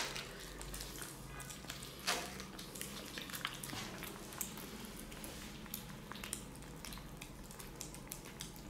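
Several kittens eating from ceramic plates: faint, irregular wet chewing, smacking and lapping clicks.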